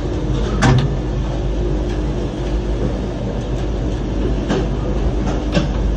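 Gateway Arch tram capsule riding up inside the arch leg: a steady low rumble and rattle, with a sharp click about a second in and two more near the end.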